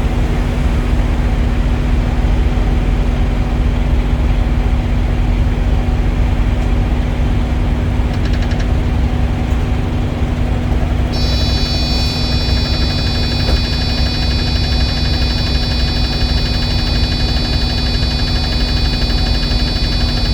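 Steady, loud low rumble of an idling diesel engine. About eleven seconds in, a high-pitched electronic alarm tone starts and holds steady: the Thermo King TriPac APU's alarm sounding as the unit is switched on.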